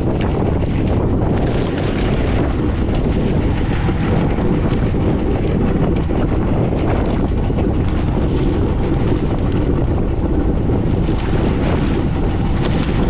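Fishing boat under way at sea: its engine running steadily, with wind buffeting the microphone and water rushing past.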